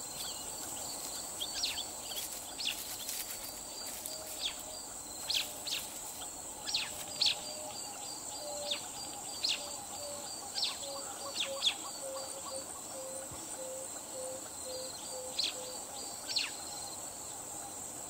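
Forest ambience: a steady high-pitched insect drone and a pulsing insect trill, with birds giving short falling chirps every second or so. A long string of low, evenly spaced notes runs through the middle.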